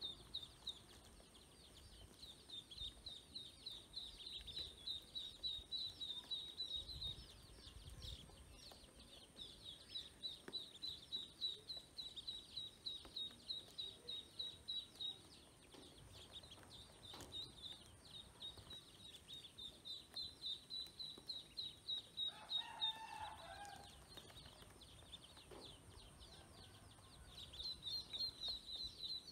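A group of domestic ducklings peeping: rapid, high-pitched peeps in long runs, several a second. A brief, louder, lower-pitched call comes in about three quarters of the way through.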